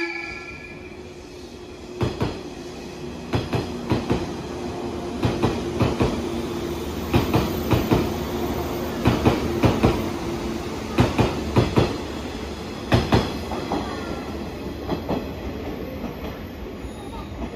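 JR 185 series electric multiple unit passing at speed, its wheels clacking over the rail joints in quick doubled and tripled knocks as each bogie crosses, over a steady hum. The knocks grow fainter near the end as the train draws away.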